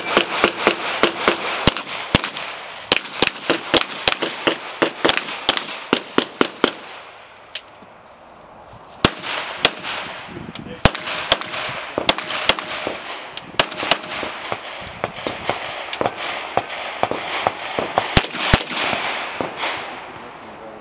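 Competition pistol fired in rapid strings, several shots a second, after a short shot-timer beep right at the start. The shooting breaks off for about two seconds near the middle, then resumes in further quick strings.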